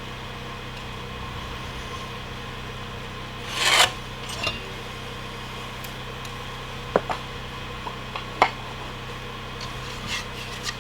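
Wood handled during trim carpentry: one short scrape of wood on wood about three and a half seconds in, then a few light clicks and taps. A steady low hum runs underneath.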